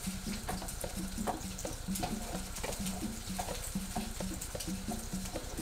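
Wooden spatula scraping and tapping against a frying pan in quick repeated strokes as scrambled eggs with sausage are stirred, over a faint sizzle of frying.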